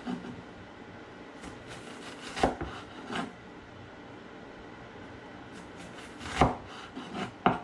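Knife cutting an onion on a cutting board: a handful of separate sharp knocks of the blade on the board, spaced irregularly with long pauses between them.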